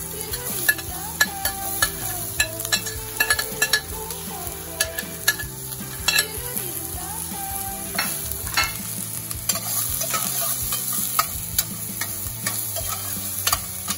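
Ginger, garlic and chopped onion sizzling in a little oil in a stainless steel Saladmaster pot, with many sharp clicks and scrapes of a metal utensil against the pot as the onions go in and are stirred.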